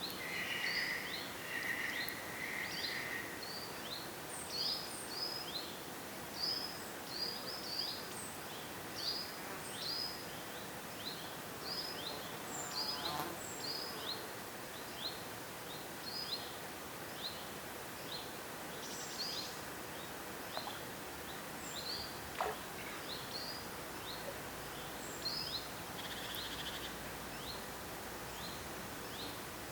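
Birds calling in woodland: many short, high chirps repeating throughout, with a trill in the first few seconds, over a steady faint hiss.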